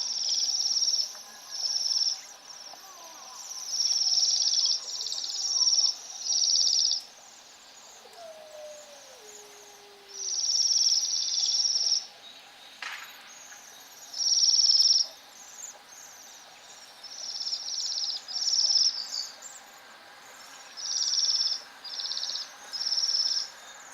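Songbird singing short, rapid, high-pitched trills, about a dozen of them lasting a second or so each, with brief pauses between.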